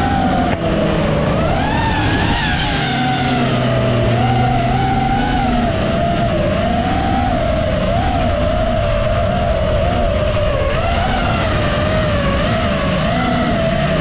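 FPV quadcopter's motors and propellers whining. The pitch wobbles up and down as the throttle changes, over a lower steady hum.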